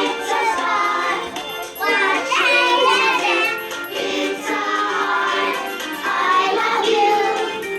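Young children singing together in a group over a music accompaniment.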